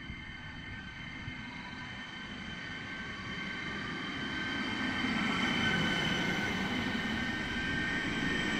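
Regional passenger multiple-unit train approaching along the platform and rolling past, growing steadily louder. Its rumble carries several steady high whining tones that strengthen as it draws level.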